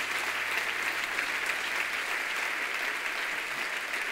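Large congregation applauding, a steady dense clapping that eases slightly near the end.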